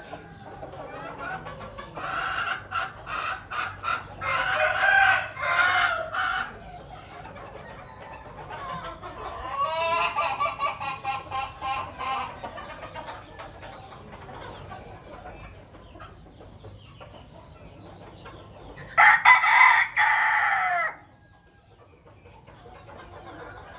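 Chickens clucking in runs of rapid, repeated calls, and a rooster crowing loudly for about two seconds near the end, cut off suddenly.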